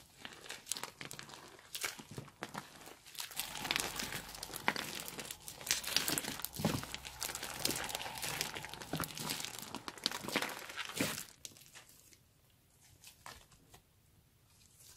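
Hands squeezing and kneading a large mass of foamy slime, giving a dense run of tiny crackles and squelching pops. The sound dies away about twelve seconds in, leaving only a few faint clicks.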